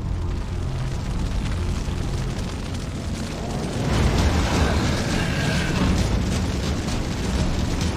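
Dramatic sound effects of a low, continuous rumbling eruption with booms, growing louder about four seconds in.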